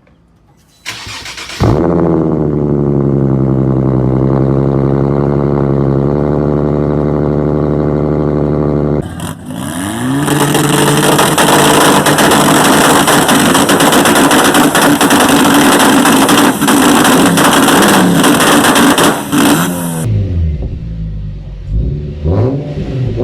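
Car engines revving through loud exhausts. About a second in, a steady engine note starts and settles slightly lower. About nine seconds in it gives way to louder, raspy hard revving with the pitch swinging up and down. Near the end come short rev blips.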